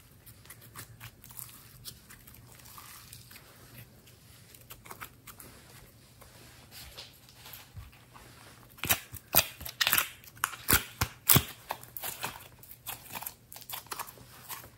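Glossy slime being stretched and squeezed by hand, giving a run of clicks and small pops. They are sparse at first, with a louder cluster of sharp pops between about nine and eleven and a half seconds in.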